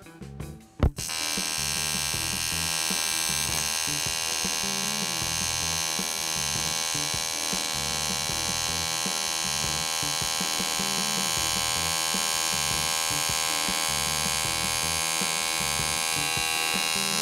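AC TIG welding arc on 3 mm aluminium at about 100 A, no pulse, from a TEAMWELDER TIG 180 AC/DC: a steady, even hum as the arc switches back and forth between positive and negative at the machine's set frequency. It starts with a sharp click as the arc strikes about a second in.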